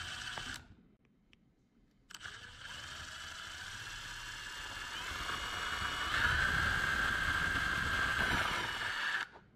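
Cordless drill running at high speed with light pressure as its bit bores through the thin plastic wall of a Tupperware container. The motor stops briefly just after the start, then runs again for about seven seconds, its whine climbing and growing louder about six seconds in before it cuts off near the end.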